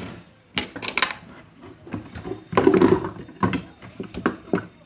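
Irregular clicks and knocks of plastic fidget spinners clattering against each other and the box as a hand rummages among them, with a denser clatter a little past halfway.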